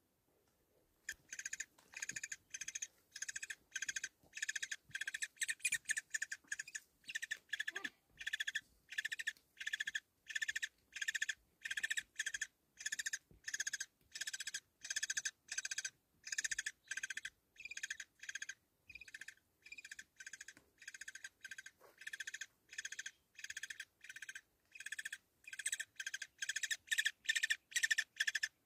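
An animal's high-pitched call, repeated evenly about twice a second, starting about a second in.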